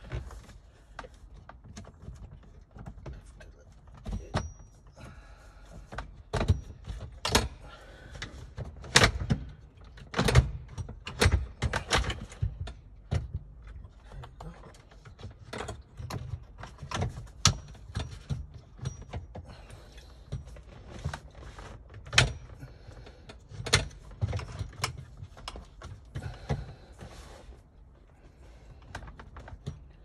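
Irregular clicks, knocks and light rattles of parts and tools being handled during hand work on a car's gear shift assembly, with the loudest knocks from about 6 to 12 seconds in.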